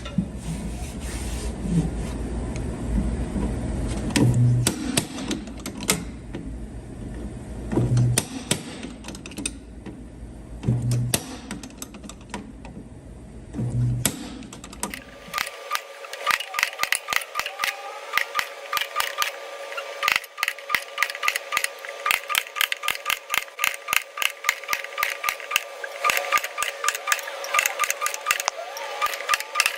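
Auto body dent pulling on a car's quarter panel: repeated sharp metallic clicks and taps of the dent puller, over a low shop rumble with a heavy thump about every three seconds. About halfway through the rumble cuts out and a quicker, denser run of clicks follows over a steady hum.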